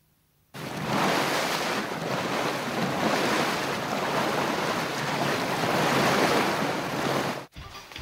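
Wind and sea surf in a steady, even rush that swells and eases a little. It starts about half a second in and cuts off abruptly near the end.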